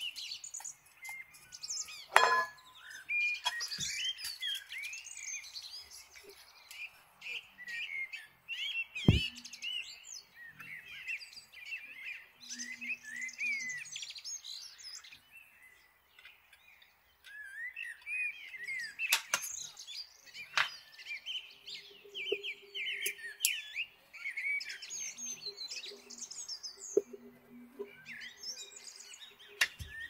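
Many small birds chirping and twittering almost without pause, with a short lull about halfway through. A few sharp knocks, louder than the birds, stand out at intervals.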